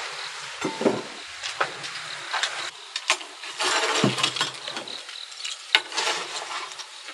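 Wood-fired ceramic bowls being picked up and set down on a table: a string of light clinks, knocks and short scrapes of glazed stoneware against stoneware and the tabletop.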